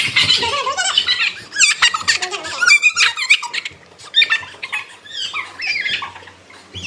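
A young child squealing and laughing in high-pitched squeals, busiest in the first few seconds and dropping off about four seconds in.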